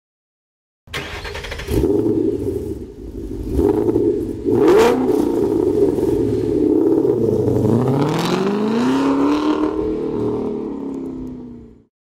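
A car engine revving, with a couple of sharp hits in the first five seconds. Its pitch dips and then climbs in a long rev, before it fades out just before the talking starts.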